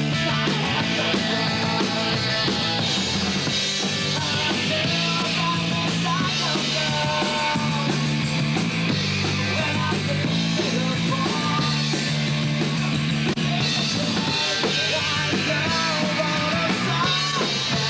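Modern rock band playing a song with guitars, bass and drums, steady and loud throughout.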